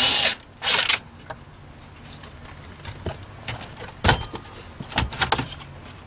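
A power drill runs in two short spurts at the start, backing out a dashboard trim screw. Then come scattered clicks and a sharp knock about four seconds in as the plastic trim piece is worked loose from the dash.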